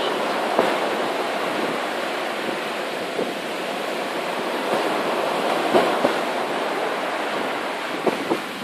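Steady wash of surf and wind noise on the microphone, with a few faint sharp pops from distant fireworks.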